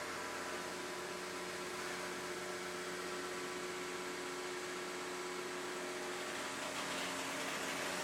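A machine running steadily with an even, pitched hum over a noisy hiss, without changing speed.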